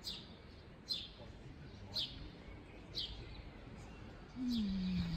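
A small bird calling: short, high, downward chirps repeated about once a second. Near the end a low tone slides down in pitch and is the loudest sound.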